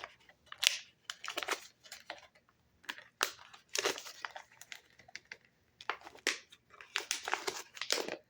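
A sample bar of soap's packaging being handled and unwrapped: irregular rustles that come in short clusters every second or so.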